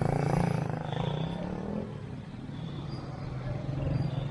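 Motorcycle engine running, its pitch rising briefly a little under two seconds in.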